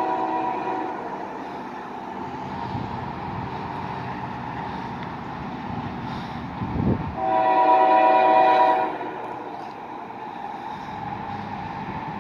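Diesel freight locomotive's air horn sounding a chord twice: a blast that ends about a second in, then a louder one of nearly two seconds past the middle, just after a brief thump. The locomotive's low rumble runs underneath.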